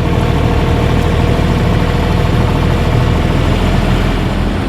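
Mini excavator engine running steadily, with the machine working its hydraulics to carry a blade bucket lifted on its front blade.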